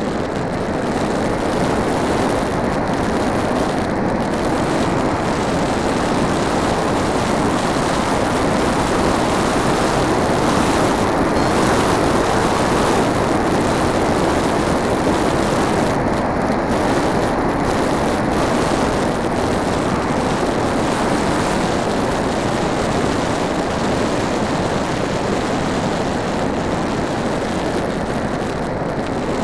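Onboard sound of a Multiplex Blizzard RC model plane in flight: a steady rush of airflow and propeller noise, swelling a little in the middle and easing off near the end.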